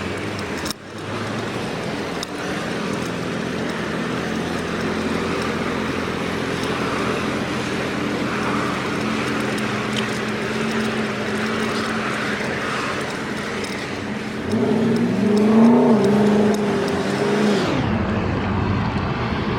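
Road traffic: motor vehicles passing on a street. About three quarters of the way through, one vehicle's engine becomes the loudest sound, shifting in pitch for a few seconds before falling away.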